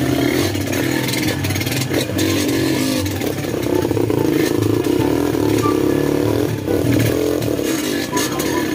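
Dirt bike engine revving up and down under riding load, with rattling and clatter. The revs climb through the middle and drop sharply about six and a half seconds in.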